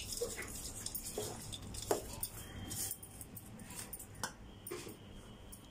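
Steel spoon scraping and clinking against a stainless steel bowl while stirring crumbly steamed millet and jaggery, faint, with a few sharper clinks.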